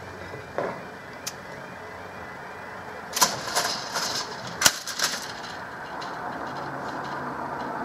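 Level crossing barrier booms coming down and clattering into their rests: a cluster of sharp knocks about three to five seconds in, the loudest part. A low rumble slowly grows toward the end.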